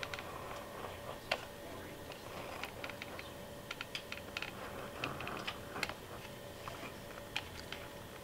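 Light, irregular clicks and ticks as a hot glue gun's trigger is squeezed to feed the glue stick while a bead is laid along a foam-board edge.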